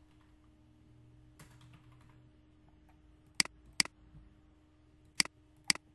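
Keys typed quietly on a computer keyboard, followed by four sharp loud clicks in two pairs, each pair about half a second apart.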